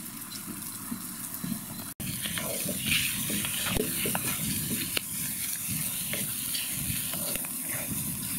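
Diced beef fat starting to render, sizzling in a pan over an open fire, stirred and scraped with a wooden spatula, from about two seconds in.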